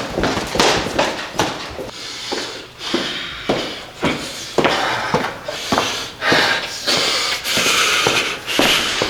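Nerf foam-dart blasters firing in a quick, irregular run of sharp pops and knocks, well over a dozen across the stretch.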